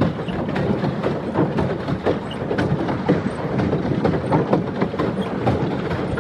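Pedal-driven paddle boat under way: a steady clatter of the pedal drive and paddle wheel churning the water, full of irregular clicks and knocks.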